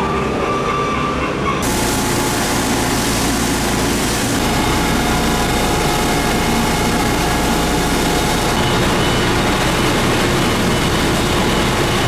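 Steady hiss of a high-pressure hose jet spraying mud off the pavement, over a fire tanker truck's engine and pump running steadily with a low hum. Both start abruptly about a second and a half in.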